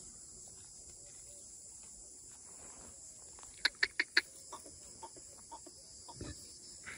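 Four short, loud bird calls in quick succession about three and a half seconds in, over a steady high-pitched insect drone.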